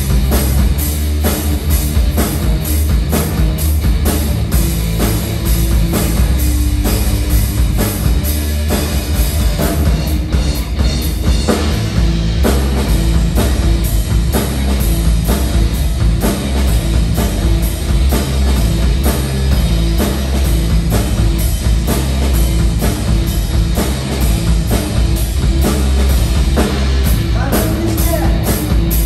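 Live rock band playing loud: electric guitars over a steady drum-kit beat.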